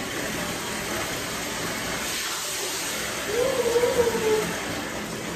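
Bathtub faucet running, water pouring steadily into the tub with a hiss-like rush. About three seconds in, a brief whine rises and falls over the water.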